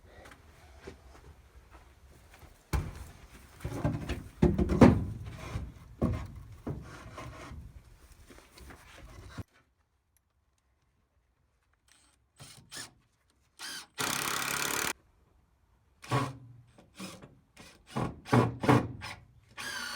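Carpentry work on wooden stairs: irregular knocks and clunks of lumber being handled and struck. Partway through the sound cuts out. Then a power tool runs steadily for about a second, and more knocks follow.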